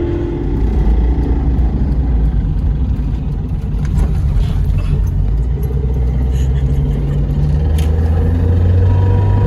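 Heard from inside the cabin, a 1992 Mazda Miata's 1.6-litre four-cylinder and drivetrain run on the road, with a steady low hum, an engine note rising from about six seconds in, and a couple of sharp ticks. The car's differential is failing, with a bearing clicking away.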